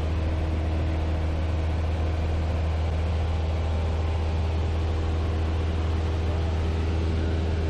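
Cessna 172M's four-cylinder Lycoming O-320 engine and propeller droning steadily in flight: a deep, even hum that holds one pitch throughout.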